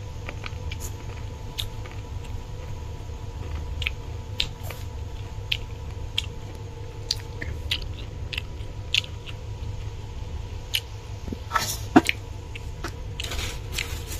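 Someone chewing a piece of raw green mango close to the microphone, with irregular sharp crunching ticks. A steady low hum runs underneath, and a louder crunch or click comes near the end.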